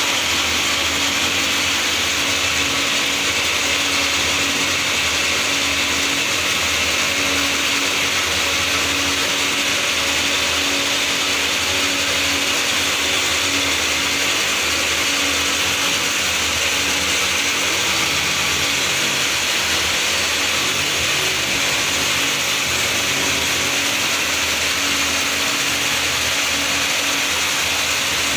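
Steady machine noise: a continuous hiss with a low hum underneath, unchanging throughout.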